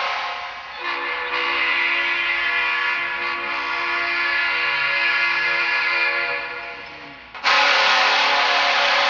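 Nashville Predators' arena goal horn sounding one long, steady multi-note blast for about six seconds, then fading away. A much louder burst cuts in abruptly near the end.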